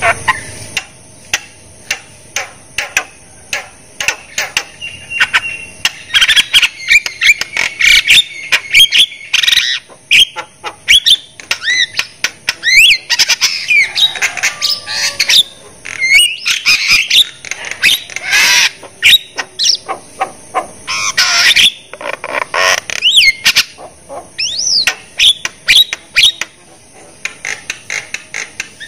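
Javan myna singing: a fast run of sharp clicks mixed with whistled notes that glide up and down, broken by harsh chattering bursts. A steady high hiss runs underneath.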